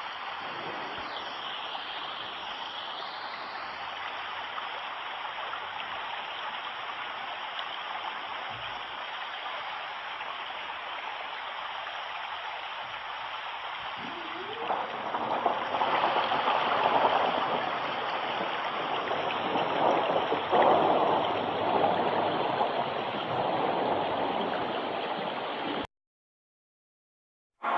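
Running water, a steady rushing and gurgling like a stream. About halfway through it gets louder and fuller, then cuts off to silence shortly before the end.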